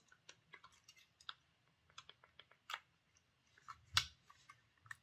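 Irregular small clicks and taps of an old Tri-ang Princess Louise model locomotive being handled and worked on, with one louder knock about four seconds in.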